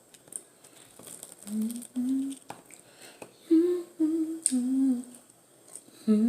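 A woman humming a short tune with her mouth closed: a run of brief notes starting about a second and a half in, ending on a longer held note.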